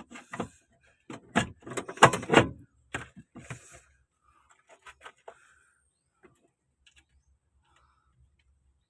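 A run of clattering knocks and clicks for the first few seconds, loudest about two seconds in, then a few scattered faint clicks.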